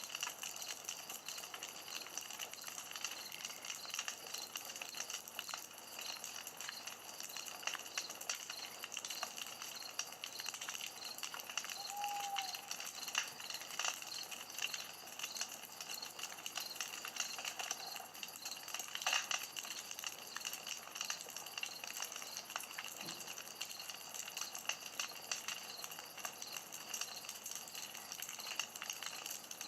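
Campfire burning, crackling steadily with many small irregular snaps and pops over a soft hiss, and a brief faint whistle about twelve seconds in.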